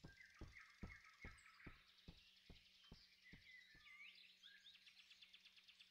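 Very faint woodland ambience with birds chirping, and a run of soft low thuds about two a second that fade out after about four seconds.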